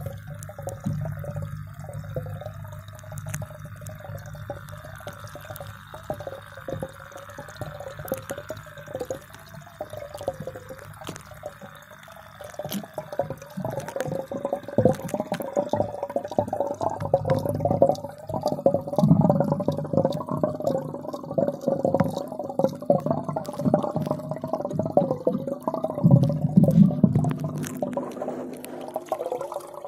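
Water heard through a phone's microphone submerged in a fish tank: a muffled wash with a wavering hum and many scattered clicks, growing louder and busier about halfway through.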